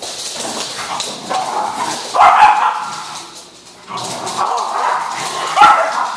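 Dogs barking while they play-fight, loudest a couple of seconds in and again near the end.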